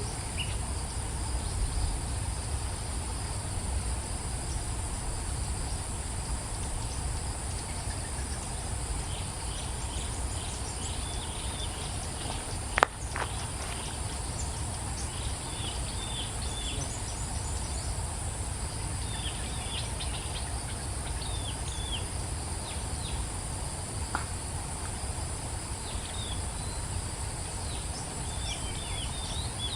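Steady high-pitched insect drone with a low rumble underneath. From about a third of the way in, small birds give flurries of short, falling chirps. There is one sharp click a little before the middle.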